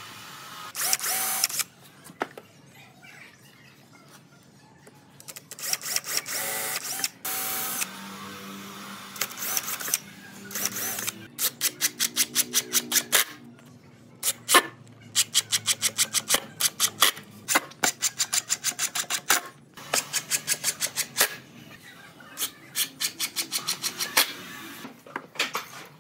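An 18V cordless impact driver drives screws into pine in a series of short bursts. The first few are smooth spinning, and the later ones are a rapid hammering clatter as the impact mechanism kicks in to seat the screws.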